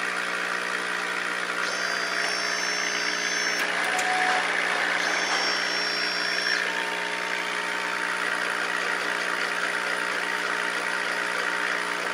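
Desktop laser engraver at work: a steady fan hum, with two high-pitched whines of about two seconds each, about two and five seconds in, as the stepper motors drive the laser head across the bowl's base.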